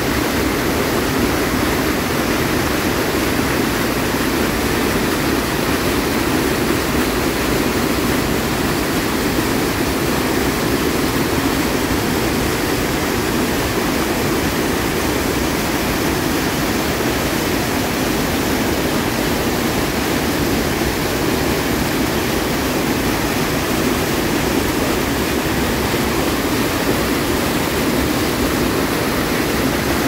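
River water pouring over the crest of a low concrete dam spillway and churning below it: a steady, loud rush of falling water.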